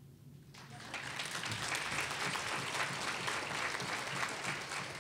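Audience applauding, starting about half a second in, in response to a person in the crowd being singled out.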